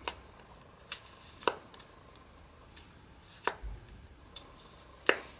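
A paper-piercing tool punching holes through cardstock: about five sharp little clicks at irregular intervals as the point pops through the paper.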